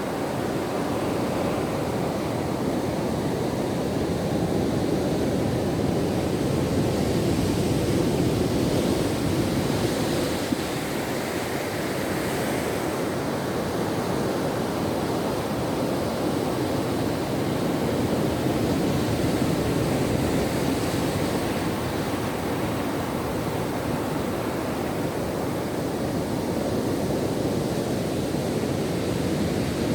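Ocean waves breaking on a shore: a continuous rushing surf that swells louder and eases off in slow surges, about every ten seconds.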